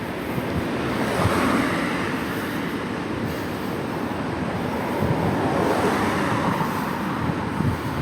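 Wind rushing over the microphone of a camera on a moving bicycle, with road traffic going by; the noise swells twice as vehicles pass.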